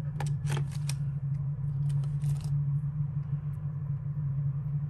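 A few small metallic clicks and clinks of costume jewellery being handled, bunched in the first second and again around two seconds in, over a steady low hum.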